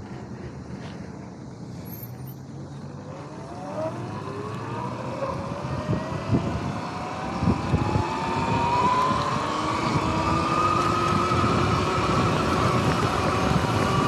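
Sur-Ron X electric dirt bike pulling away from a stop: from about four seconds in, its motor whine rises steadily in pitch as it speeds up, with wind rushing over the microphone growing louder. A few thumps come around the middle.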